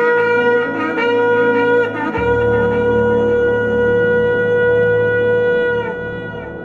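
Shofar blown: a blast of about two seconds, a brief break, then a long steady held blast that dips slightly in pitch as it ends near six seconds in.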